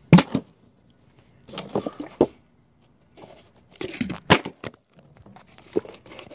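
Plastic water bottle handled right next to the microphone: crinkling plastic and a few sharp knocks in separate bunches, as it is gripped and set down on concrete.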